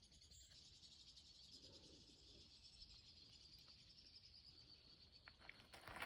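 Faint, steady high-pitched trilling of insects, with a few crunches near the end.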